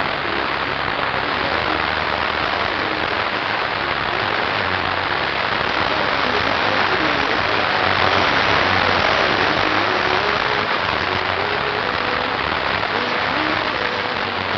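A steady, even hiss with faint wavering tones underneath.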